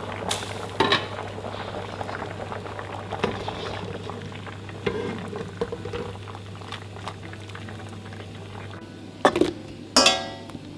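A pan of water with sliced vegetables at a rolling boil, bubbling steadily. Utensils knock against the pans about a second in and twice near the end, the last knock ringing briefly.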